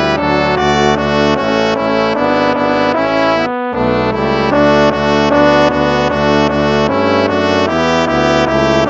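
Instrumental hymn music: a sequence of held chords, with a short break about three and a half seconds in.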